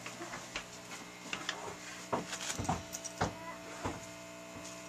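Steady low machine hum at several fixed pitches, with scattered light knocks and taps.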